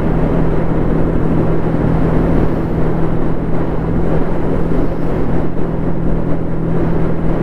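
Motorcycle engine running at a steady cruise, its note holding even throughout, under a dense rush of wind noise.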